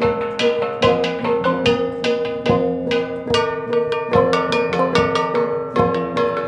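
Montagnard gong ensemble: several flat bronze gongs hung on a frame, struck with wooden beaters in a quick interlocking rhythm of about three strikes a second. Each stroke rings on, so the tones overlap into a continuous metallic ringing.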